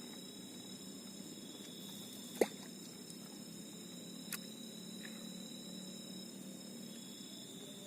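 Night insects chirring in a steady high tone over a low background hum, with one sharp click about two and a half seconds in and a fainter click about two seconds later.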